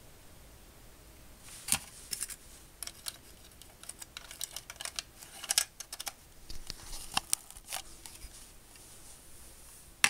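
Irregular light plastic clicks and knocks from a plastic smoke detector and its mounting base being handled and twisted, with a sharper click about two seconds in.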